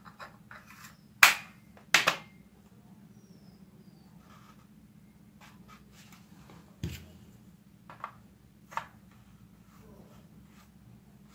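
Toy airsoft rifle parts of plastic and metal clacking as they are handled and fitted together: two sharp knocks about a second apart near the start, then a few softer clicks and taps.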